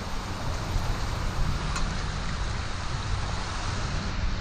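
Wind buffeting the microphone over the steady rush of surf churning around the pier pilings.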